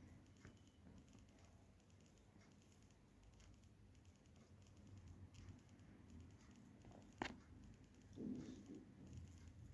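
Near silence: the faint low hum of a PBS ceiling fan running, with light ticking and one sharp click about seven seconds in.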